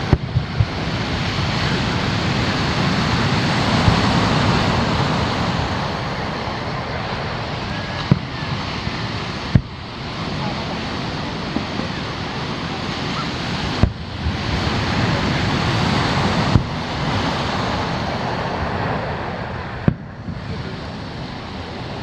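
Surf washing up on a sandy beach, swelling and ebbing in long waves. Several sharp bangs of distant fireworks bursting cut through it.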